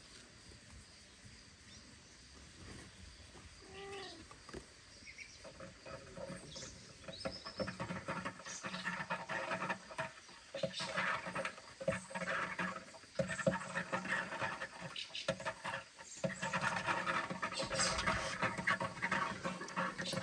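A cat's short meow about four seconds in, then a long stretch of scratchy clicking and rustling that grows louder, as of a kitten's claws scrabbling on a wooden cat house.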